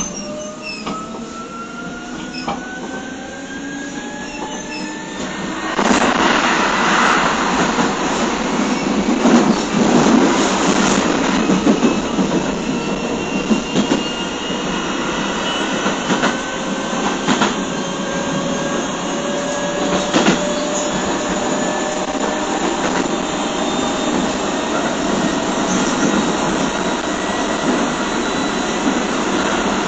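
Interior running sound of a Keio 7000 series motor car with field-chopper control. The traction-motor whine climbs slowly in pitch as the train gathers speed, over wheel and rail rumble that gets louder about six seconds in, with a few sharp clicks.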